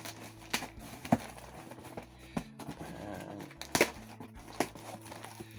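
Sellotaped cardboard box being opened by hand: scattered sharp knocks and rustles of cardboard and tape.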